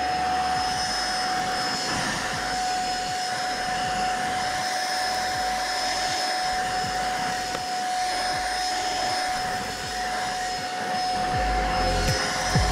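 Deerma DX700 cordless stick vacuum running steadily, a constant high-pitched motor whine over a rush of suction, as its floor head is pushed through dust and chunks of hair on a tile floor.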